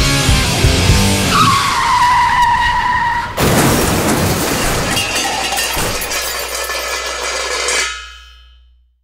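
End of a heavy metal track: a high screeching tone is held over the band for about two seconds, then a sudden loud crash rings out and fades away to silence.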